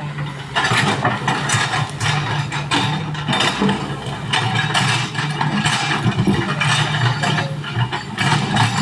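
Excavator's diesel engine running steadily, with repeated scraping and clanking noises over it from about half a second in.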